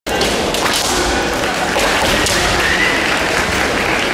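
Busy kendo tournament hall: a steady loud din with scattered sharp knocks and thuds, and a drawn-out high-pitched call from about two to three seconds in.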